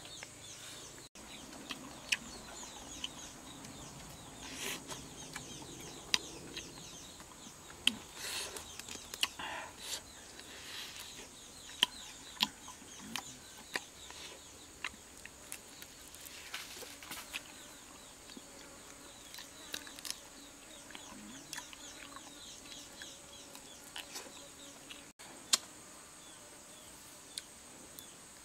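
Close-up eating sounds: roasted chicken being torn apart by hand and chewed, with irregular sharp clicks, smacks and crackles at varying loudness. A steady faint high hiss runs underneath.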